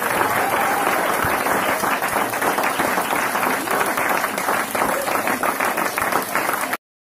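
Audience applauding steadily, a dense patter of many hands clapping with a few voices mixed in. It cuts off abruptly near the end.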